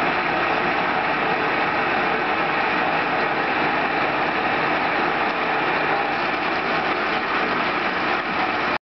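Victor 16" x 40" geared-head engine lathe running with its spindle turning: a steady mechanical whirr of the headstock gearing.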